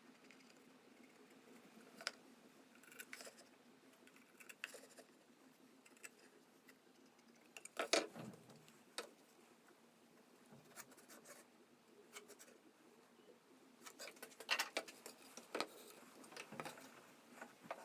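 Scattered light clicks and knocks over a quiet background, the loudest about eight seconds in.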